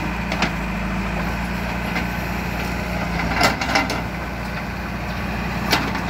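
JCB 3DX backhoe loader's diesel engine running steadily while the backhoe works, with a few sharp knocks and clanks: one about half a second in, two close together around the middle, and one near the end.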